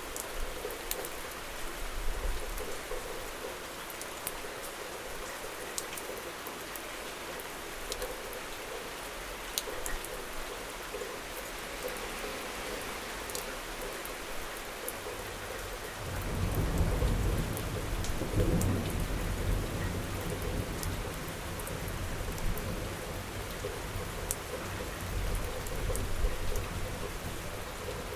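Steady rain hissing, with separate drops hitting close by. A low rumble of thunder swells a little over halfway through and rolls on for several seconds.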